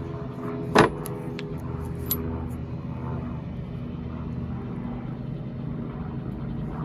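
Baldor bench buffer's electric motor running with a steady hum. About a second in there is one short, loud, sharp sound, followed by a few lighter clicks.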